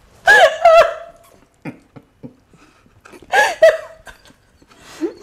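High-pitched laughter in two short bursts, one right at the start and one about three seconds in, with quiet between.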